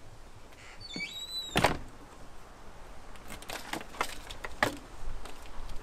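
A cabin door squeaks briefly and shuts with a loud knock, then a run of sharp clicks as its handle and lock are worked.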